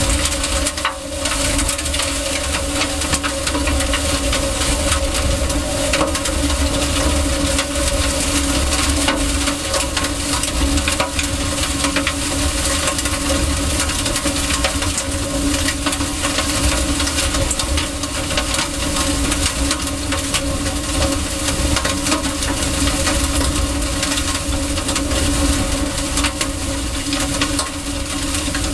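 Strong tornado winds buffeting the microphone: a loud, continuous crackling rush with a deep rumble, over a steady low hum.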